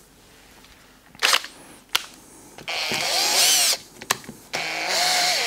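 Drill spinning a buffing pad against a plastic headlight lens to work polishing compound in after fine wet sanding. It runs in a short burst about two and a half seconds in, stops, then starts again near the end and keeps running, its motor whine wavering with trigger speed.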